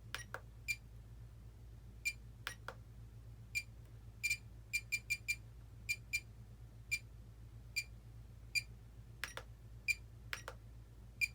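Spektrum DX8e radio transmitter giving short, high-pitched beeps as its menu is scrolled and selected while assigning a channel to a switch, about eighteen beeps at an uneven pace, with a few clicks of the controls among them.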